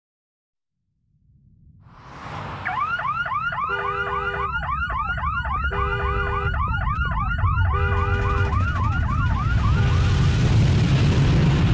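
Cartoon sound effects: a deep rumble swells up out of silence, and car alarms start whooping over it, a fast up-and-down warble with short beeping bursts. The alarms fade near the end as the rumble grows into its loudest roar, the strike of a huge energy beam on the city.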